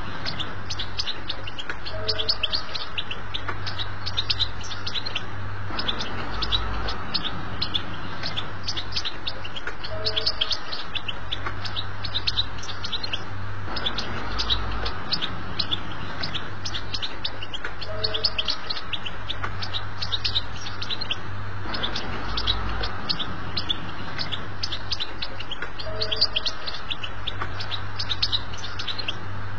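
European goldfinch singing a fast, continuous twitter of rapid high chips, the chattering 'betbeta' song, over a low steady hum.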